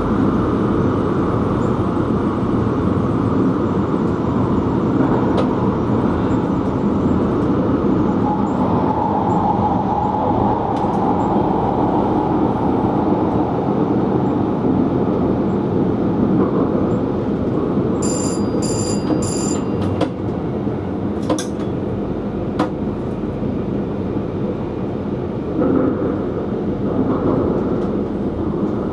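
Electric passenger train running, heard from inside the driver's cab as a steady rumble and rush of wheels and motors. About two-thirds of the way through, a quick series of three or four high electronic beeps sounds, followed by a couple of sharp clicks.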